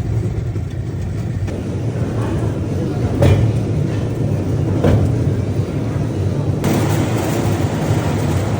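Rail bike rolling along the track with a steady low rumble. Two sharp clacks about a second and a half apart sound a little past three seconds in, and a hiss grows louder near the end.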